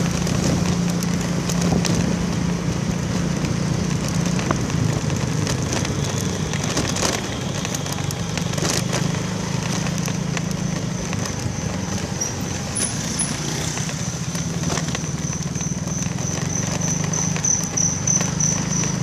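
Small motorcycle engine running steadily under broad wind and road noise, recorded while riding. A thin high-pitched pulsing tone grows louder in the second half.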